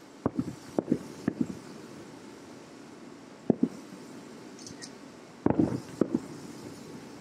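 Aerial fireworks shells bursting about two miles away, heard as dull booms, several in quick pairs, with a denser cluster about five and a half seconds in. A steady background rush runs underneath.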